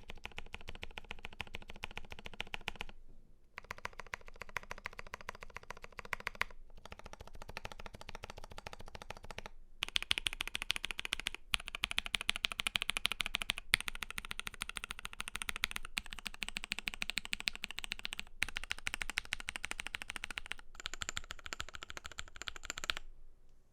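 Fast typing on a modded mechanical keyboard, a Keydous NJ80 with brass plate, lubed Durock Cerulean switches and PBT Cherry-profile keycaps: a dense stream of key clacks in runs of a few seconds with brief pauses between them, stopping shortly before the end.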